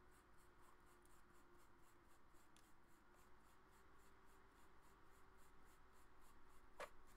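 Faint, regular scratching of metal threads as the front lens group of a Super Takumar 300mm f/4 lens is turned by hand into the barrel, about four strokes a second, with one sharp click near the end.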